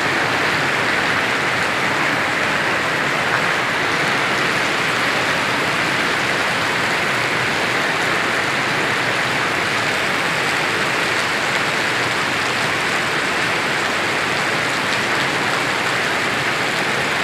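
Heavy rain falling steadily, a dense even hiss of a downpour.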